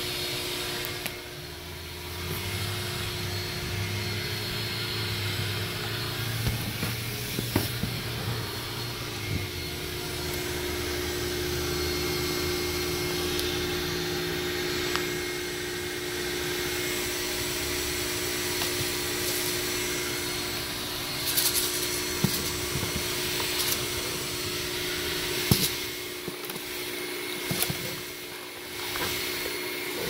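Vacuum cleaner running with a steady motor whine as its hose cleans the car's floor carpet, with a few sharp knocks in the second half.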